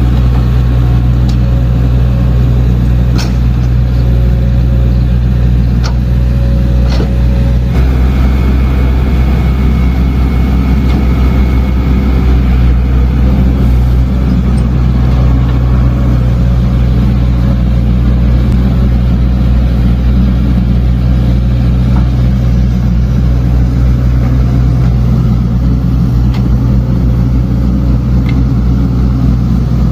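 Diesel engine of heavy earthmoving machinery running steadily, with a few sharp metallic clanks.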